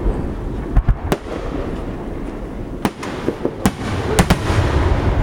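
Aerial fireworks bursting: about seven sharp booms, some in quick pairs, over a continuous rumble and crackle from other shells going off.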